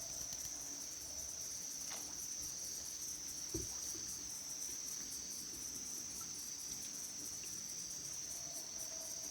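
Steady chorus of insects trilling, one continuous high-pitched, rapidly pulsing note. There is a soft low thump about three and a half seconds in.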